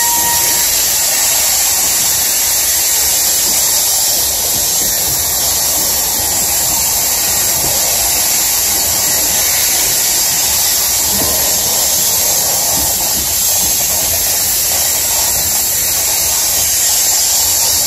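Loaded coal gondolas rolling past, their steel wheels making a steady, loud hiss of friction against the rail.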